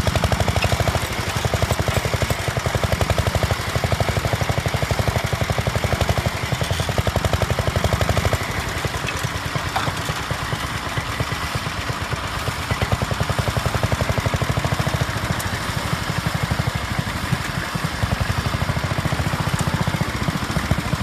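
Vintage tractor engine running, a steady, rapid exhaust beat. Its loudness swells and eases about once a second, and the deep part of the beat drops back somewhat in the middle before returning.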